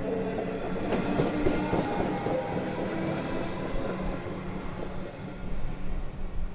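Comeng electric suburban train pulling out and moving away: a steady rumble with a motor whine and wheels clicking on the rails, growing fainter after the first few seconds as it leaves.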